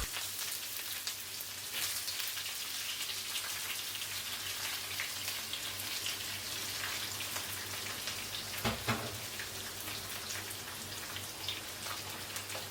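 Onions sautéing in hot oil in a pan: a steady crackling sizzle, with a single low knock about nine seconds in.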